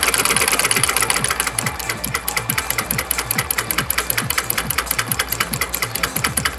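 Homemade single-cylinder solenoid engine running on a low-voltage bench supply, its solenoid plunger and mechanical switch clacking once per stroke in a fast, even rhythm.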